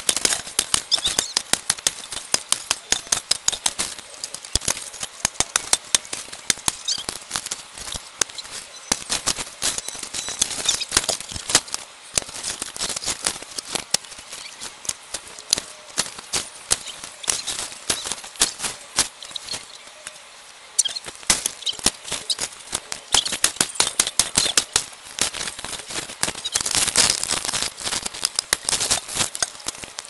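Sticks jabbing and scraping through dry leaves, brush and dirt: dense crackling and rustling full of quick sharp clicks, easing briefly about two-thirds of the way through.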